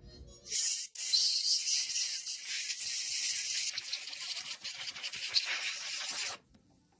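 A pressurised jet hisses from a nozzle onto carburetor parts: a short burst, then a long, steady blast that eases off partway and stops suddenly near the end.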